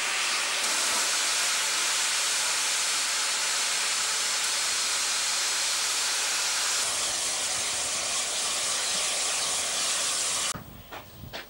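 Steam locomotive 3801 venting steam in a loud, steady hiss. About a second before the end the hiss cuts off suddenly, giving way to quieter, evenly repeated sharp beats.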